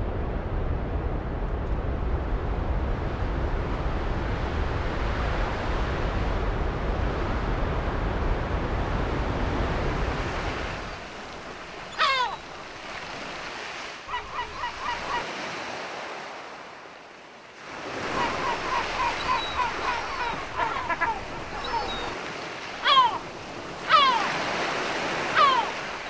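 A steady rushing noise with a deep rumble that fades out after about eleven seconds. After it, high whistled calls repeat over a softer rush: single falling sweeps and quick runs of chirps.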